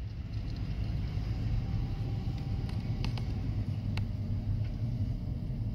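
Steady low rumble of a car and the surrounding traffic heard from inside the car's cabin, with a few faint clicks near the middle.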